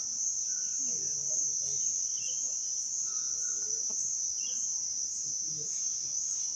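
A steady, high-pitched insect chorus trilling without a break, with faint voices underneath.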